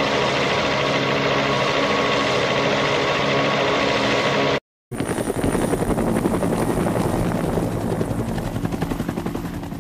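Helicopter engine and rotors running steadily, cutting out for a moment about halfway through. The sound then resumes as a rapid, even rotor chop that starts to fade near the end.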